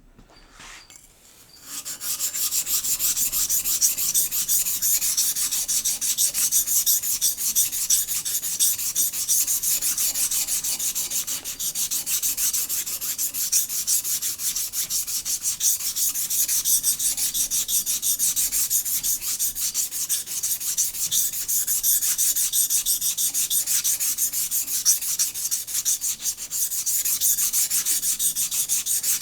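Steel plane blade rubbed steadily back and forth on the coarse side of a wet water stone, a continuous gritty rasping that starts about two seconds in.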